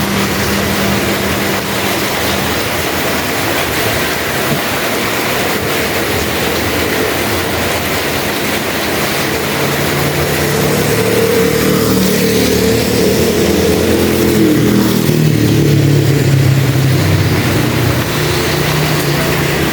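Heavy rain falling in a steady hiss, with a motor vehicle's engine hum rising over it from about halfway through and easing off near the end.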